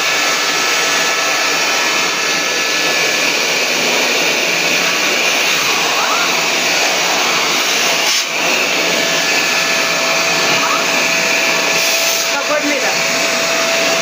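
Kent Vortex 15-litre wet-and-dry vacuum cleaner running steadily, its nozzle held up to a ceiling corner sucking up cobwebs. There is a loud, even rush of air with a steady whine on top, and a brief dip about eight seconds in.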